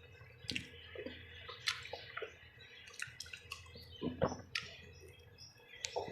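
Wet chewing and lip-smacking of someone eating, with irregular short smacks and clicks about twice a second.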